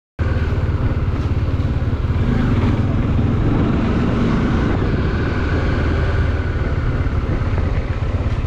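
Bajaj Dominar 400 motorcycle's single-cylinder engine running steadily with even low pulsing as the bike rides slowly along a road, with road and wind noise. The sound cuts in abruptly just after the start.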